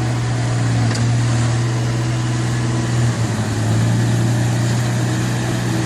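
Truck engine running steadily, with a brief dip about three seconds in.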